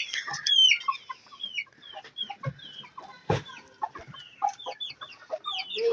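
Chickens clucking, with many short high calls one after another, and a single knock about three seconds in.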